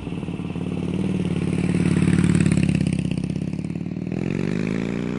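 Harley-Davidson V-twin motorcycle engine running, growing louder about two seconds in and easing back, then revving up with rising pitch near the end.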